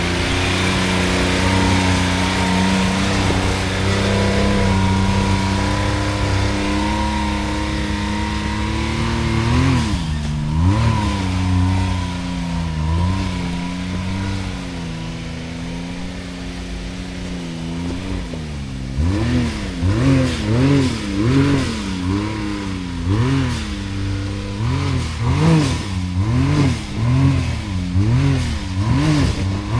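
Side-by-side UTV engine running at a steady pitch, then revving up and down; in the second half the throttle is blipped in quick swells about once a second.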